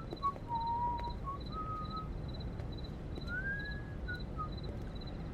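Outdoor ambience: an insect chirps in an even rhythm, about two chirps a second, while a bird whistles clear single notes at changing pitches, one of them rising past the middle, over a steady low rumble.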